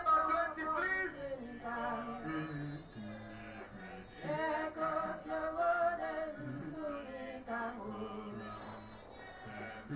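Men and women singing a worship song together in long held notes that rise and fall.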